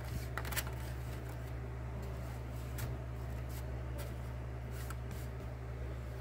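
Light clicks and crinkles of a thin clear plastic food container being handled as cake slices are set into it, over a steady low hum.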